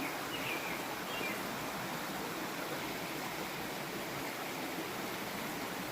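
Mountain stream rushing steadily over rocks, with a few faint, short whistled bird notes in the first second or so.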